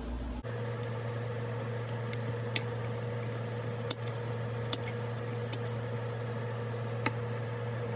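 A handful of sharp, isolated clicks and taps of small metal parts and tools being handled, over a steady low hum.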